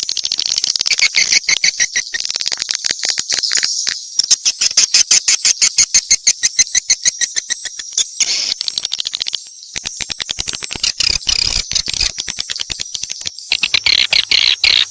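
Swiftlet calls: dense, rapid trains of short high chirps and clicking twitters, several calls overlapping in a quick ticking rhythm.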